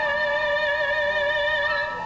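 A woman singing, holding one long high note with vibrato that breaks off just before the end.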